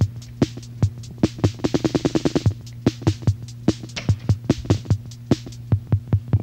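Instrumental electronic music: a drum-machine beat over a steady low synth bass note, with a quick run of hits around the second second.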